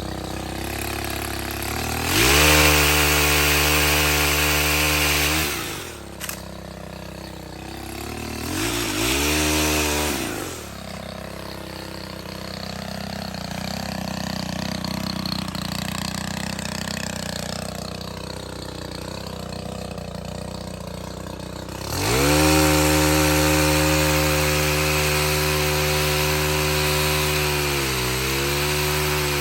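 Stihl HT 131 gas pole saw running, its engine revving up to full throttle three times and dropping back to a lower speed in between as it saws through tree limbs.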